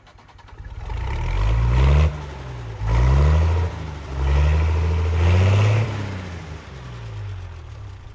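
A vehicle engine accelerating through the gears: its pitch climbs, drops back sharply twice as it shifts, holds, then falls and fades over the last couple of seconds.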